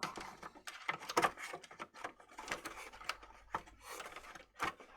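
Irregular small clicks, taps and rubbing from hands handling tools and plastic parts at a workbench.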